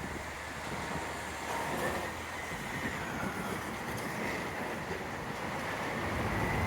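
Garbage truck engine running steadily, a low rumble with a faint high whine above it.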